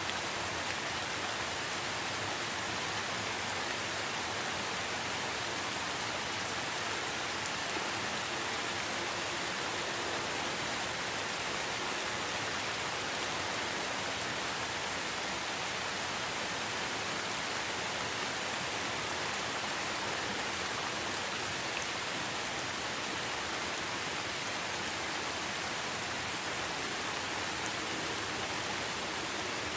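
Rainforest rain falling steadily: an even hiss with a few faint drop ticks, unchanging throughout.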